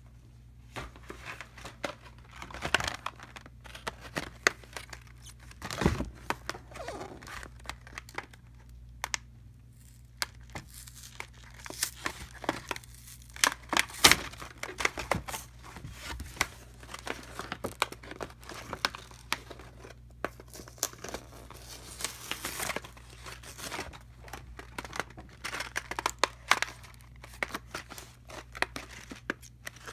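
A cardboard-backed plastic blister pack of shower curtain hooks being torn and peeled open by hand: irregular crinkling of the plastic and tearing of the card, the loudest tear about halfway through.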